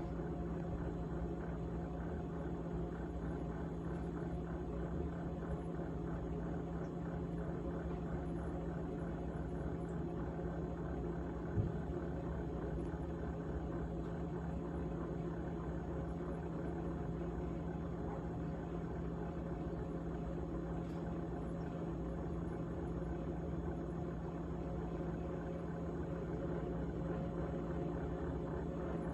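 GE GTH18XCTZRBB refrigerator running with a steady low hum and a continuous rattle. A single short click about eleven and a half seconds in.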